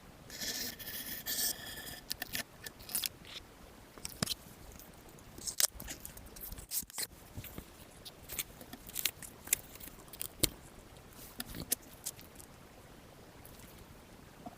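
Handling of a smartphone box and its packaging: a scratchy rustle and scrape in the first couple of seconds, then scattered sharp clicks and taps of cardboard and plastic being handled.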